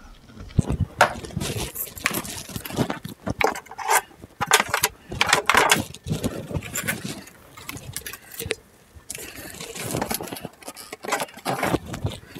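Irregular rustling, scraping and small knocks of a corrugated plastic dishwasher drain hose and a braided water supply line being handled and pushed along the floor under the cabinet.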